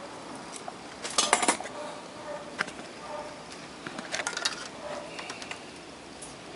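Small clicks and clinks of tools and parts being handled on a workbench, in a few short clusters. The loudest cluster comes about a second in and another around four seconds.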